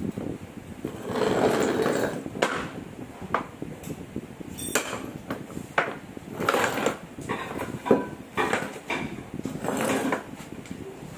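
Clatter and scraping from a vehicle driveshaft being handled on a concrete floor, with several sharp metal knocks at irregular intervals.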